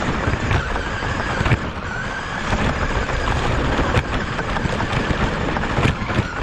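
Onboard sound of a radio-controlled car running over grass: a steady rumble of the tyres and chassis with wind on the microphone, a faint motor whine that rises and falls, and a few sharp knocks as the car bounces.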